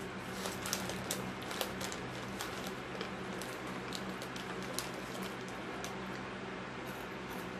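Foil snack bags crinkling and Xtra Hot Cheetos crunching as they are eaten from the bag: a string of quick, sharp crackles and clicks over a steady low hum.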